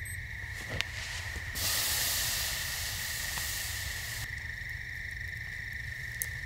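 Liquid poured from a metal cup onto glowing campfire coals, hissing into steam for about three seconds, starting a second and a half in. Under it, a steady high drone of insects.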